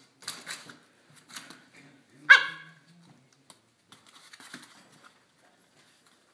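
Six-week-old Siberian Indian Dog puppies play-fighting: a few soft scuffles, then one short, sharp puppy bark about two seconds in, the loudest sound here.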